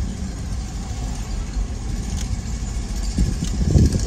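Car engine and road noise heard from inside the cabin while driving on a city street: a steady low rumble that swells briefly near the end.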